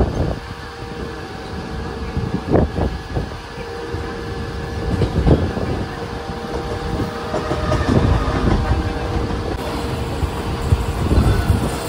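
Mumbai suburban electric local train running: a steady rumble with a continuous whine and irregular knocks of wheels on the rails.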